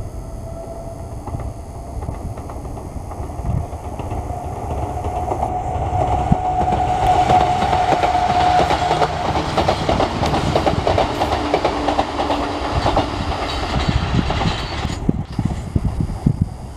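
Enshu Railway 2000-series electric train (set 2007) running past, with a steady whine that rises slightly in pitch and wheels clacking over rail joints, loudest around the middle before easing off near the end.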